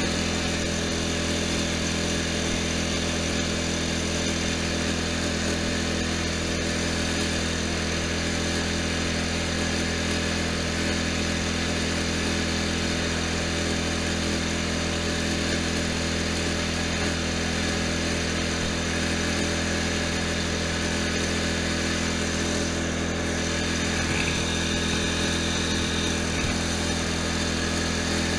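Riding lawn tractor's engine running at a steady speed as the tractor is driven, a constant unchanging drone.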